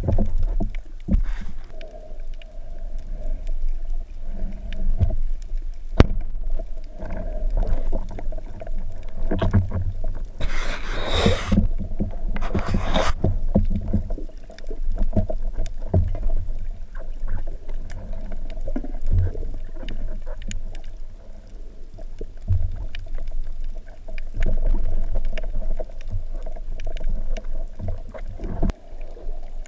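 Underwater sound heard through an action camera's housing: a low rumble of moving water with small knocks from handling the speargun, under a steady hum. A sharp click about six seconds in, and two short bursts of rushing hiss about eleven and thirteen seconds in.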